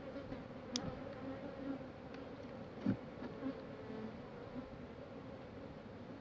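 Honey bees buzzing in flight around their hive, swelling now and then as one passes close; the colony is agitated. A light click about a second in and a sharper knock about three seconds in.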